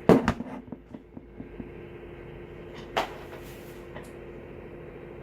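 A loaded 9mm pistol being handled: a sharp knock at the start with a quick run of smaller clicks after it, then one more click about three seconds in. A steady low hum runs underneath.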